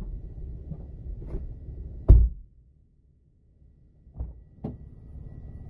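Knocks and thumps inside a parked vehicle over a low steady rumble. The loudest is a single sharp thump about two seconds in, after which the rumble stops for over a second. Two lighter knocks follow and the rumble returns.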